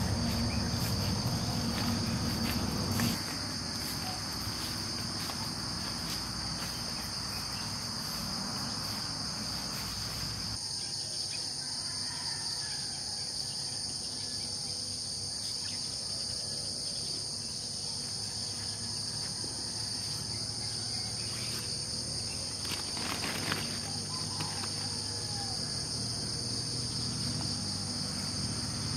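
A steady, high-pitched chorus of crickets and other night insects chirring without a break, with a second, higher-pitched insect joining about ten seconds in. A low rumble sits under it for the first three seconds.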